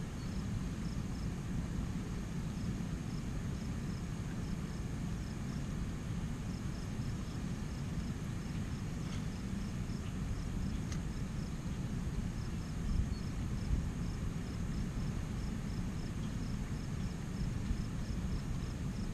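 Steady low outdoor rumble, with a faint, high chirping repeating about three times a second in runs.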